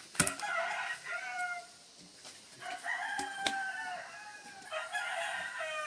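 Rooster crowing three times in succession, each crow lasting about a second, with a couple of sharp clicks, one at the start of the first crow and one during the second.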